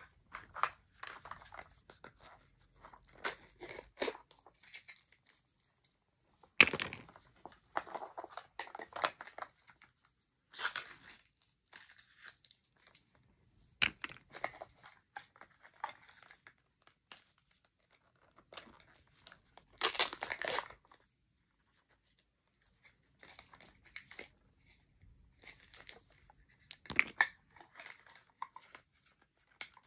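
Plastic packaging of a 5 Surprise Mini Brands capsule being torn open and crinkled by hand, in irregular bursts of rustling with quiet pauses between. A sharp tear comes about six seconds in, and a longer one of about a second comes around twenty seconds in.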